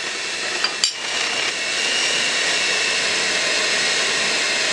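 Electric stand-and-hand mixer running steadily with its hooks kneading yeast bread dough in a turning bowl. There is a sharp clink about a second in, and then the motor grows louder and steadier.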